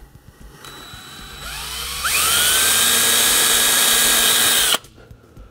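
Cordless drill run in reverse to start a hole in a fiberglass boat hull, the way to avoid chipping the gel coat. The motor winds up with a rising whine, runs steady for about three seconds, then cuts off suddenly.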